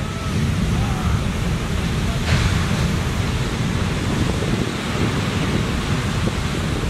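Heavy shore-break surf: a steady rumble of breaking waves and whitewater with wind buffeting the microphone. The hiss grows suddenly louder about two seconds in as a wave breaks.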